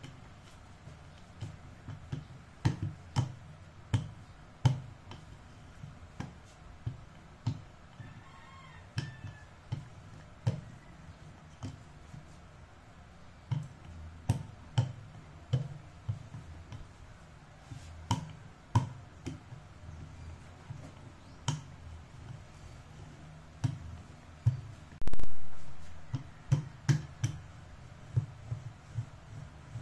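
Wooden rolling pin rolling out bread dough on a silicone mat over a tabletop, giving short knocks and taps at uneven spacing, roughly one a second. One much louder thump about 25 seconds in.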